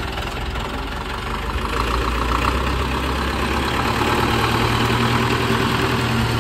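Hindustan HW50 tractor's diesel engine idling with a steady low rumble that grows somewhat louder about two seconds in.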